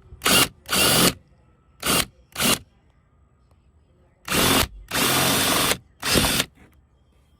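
Small power drill run in seven short bursts, drilling out plastic clips until they pop off. The longest burst, about a second long, comes just past the middle.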